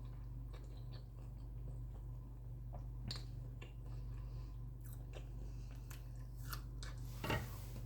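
A person chewing food close to the microphone, with scattered small wet mouth clicks and crunches, over a steady low electrical hum.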